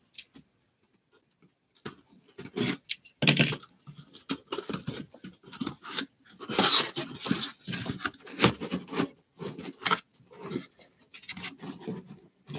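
Cardboard shipping case being opened and lifted off a stack of sealed hobby boxes: irregular scraping, rubbing and light knocks of cardboard, starting about two seconds in.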